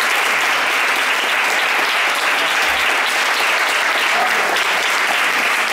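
Audience applauding steadily, a dense, even clapping that holds at one level throughout.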